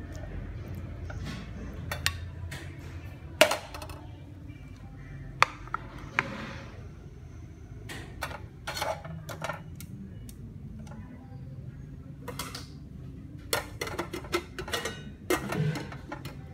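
Scattered clinks and knocks of a utensil against a ceramic plate, with a quick run of taps near the end, over a low steady hum.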